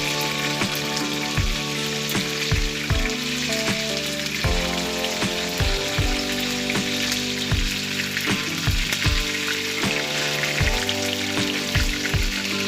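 Food frying in hot oil in a pan, a steady sizzle, under background music with a regular thumping beat.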